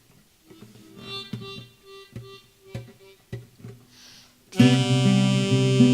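Music opening a song: a quiet intro of sparse single plucked notes, then about four and a half seconds in the full band comes in loud with held chords.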